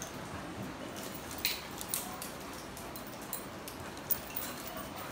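Dogs moving about on a tiled floor: a few sharp, light clicks and jingles from their claws and metal collar and leash fittings.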